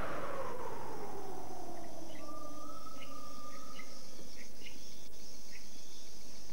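Insect drone in a wildlife ambience, steady and high, with short scattered chirps and a held whistle-like note about two seconds in. Over the first couple of seconds it sits under the tail of a falling electronic swoosh that fades out.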